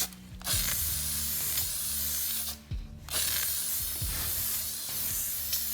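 Aerosol can of hammered-finish spray paint spraying in two long bursts of hiss, with a short break about two and a half seconds in.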